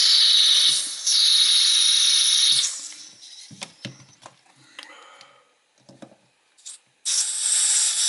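Butane hissing as a refill can is pressed onto a Zaima lighter's filler valve, in two stretches of about one and two seconds, followed by a few light handling clicks. About seven seconds in, the filler valve is pressed open with a tool and air hisses out of the lighter's tank as it is bled.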